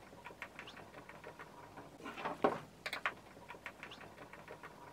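Fast-forwarded sound of a screwdriver being worked on a wooden bird box's centre panel: rapid, high, squeaky clicks and scrapes in irregular clusters.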